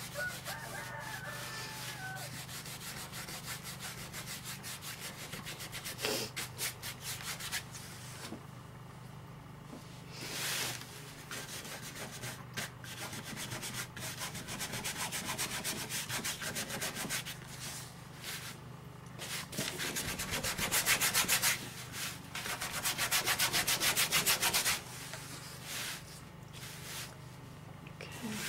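A nearly dry paintbrush scrubbing over a painted surface in quick, short, scratchy strokes. The brushing comes in runs and is loudest and densest about two-thirds of the way through. This is dry-brushing, with most of the paint rubbed off the bristles first.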